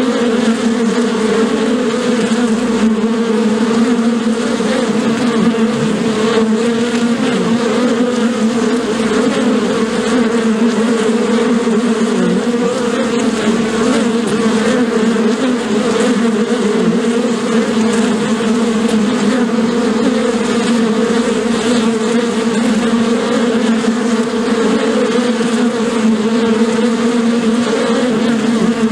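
Honeybees buzzing together in a dense, steady drone, a low hum that wavers slightly in pitch.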